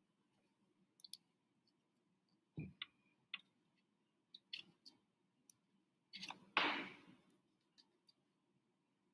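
Faint scattered clicks and taps of a paintbrush and palette being handled on a tabletop, with a soft thump a little over two seconds in and a louder rustle lasting about a second past the middle.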